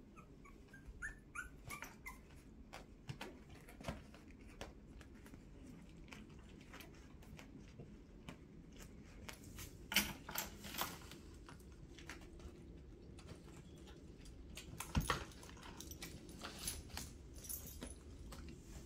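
Two-week-old miniature schnauzer puppies giving faint, short squeaking whimpers, among scattered small clicks and scuffles, with a louder sharp knock about ten seconds in and another about fifteen seconds in.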